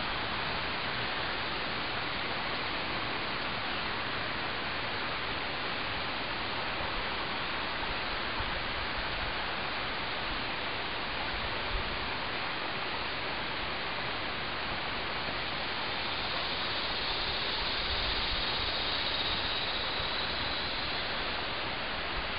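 Steady, even background hiss with no distinct events. A faint high-pitched tone rises out of it for a few seconds near the end.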